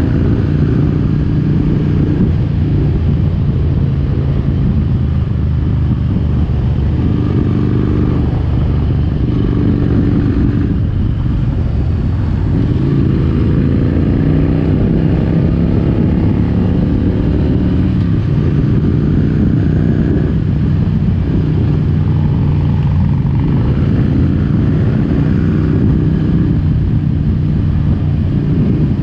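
Harley-Davidson Road King's fuel-injected Twin Cam 88 V-twin engine running under way, its note rising and falling with the throttle and climbing steadily about halfway through.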